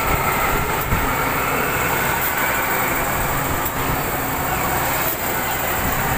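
Steady, dense rumble and hiss of a swing ride in motion, heard from the rider's seat.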